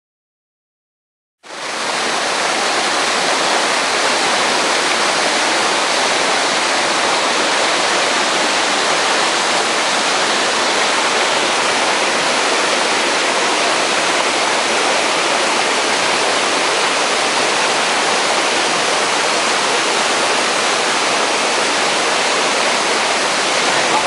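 Waterfall pouring: a steady rush of falling water that starts abruptly about a second and a half in.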